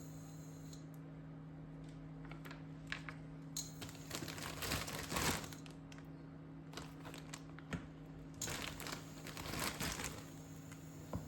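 Crinkling and rustling from something being handled, in two bouts, one about four seconds in and one about eight and a half seconds in, with scattered small clicks between, over a steady low hum.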